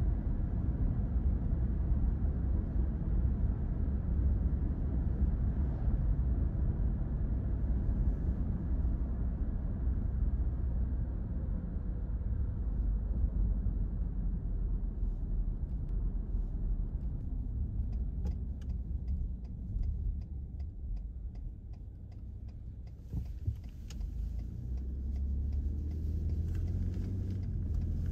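Car cabin road noise: a steady low hum of tyres and engine on the highway. It fades as the car slows, and a run of regular ticks comes in partway through. A single knock follows, and the hum builds again near the end.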